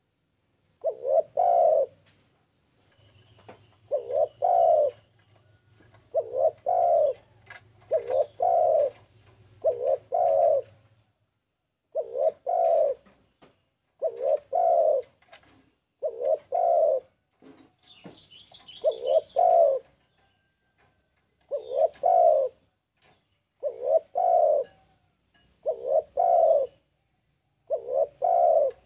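Spotted dove cooing: a series of short, low coo phrases, each about a second long, repeated about every two seconds, the persistent calling prized in a 'gacor' tekukur.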